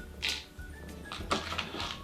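Quiet background music, with two short hissy rustles, one near the start and one a little past the middle.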